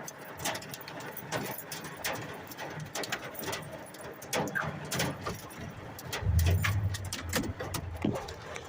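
Hailstones striking, a stream of irregular sharp taps. A low steady hum starts about six seconds in.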